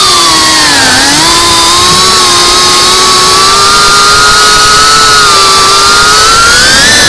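GEPRC cinewhoop FPV drone's brushless motors and propellers whining close to the onboard microphone. The pitch dips about a second in, holds nearly steady in cruise, then climbs near the end as the throttle comes up.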